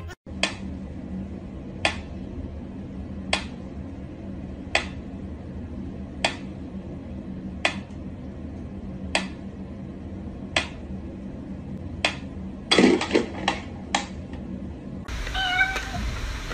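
Mechanical pendulum metronome ticking slowly and evenly, one sharp tick about every second and a half. A cat meows briefly near the end.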